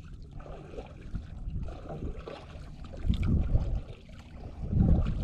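Wind rumbling on the microphone over faint water noise around a small boat at sea, with two stronger gusts, about three seconds in and near the end.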